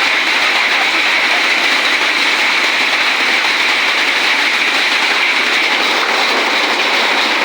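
Heavy rain falling: a loud, steady hiss of downpour that does not let up.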